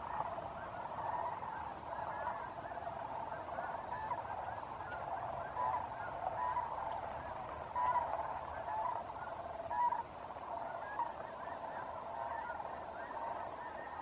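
Large flocks of snow geese and sandhill cranes calling, a steady chorus of many overlapping voices, with a few louder calls standing out around the middle.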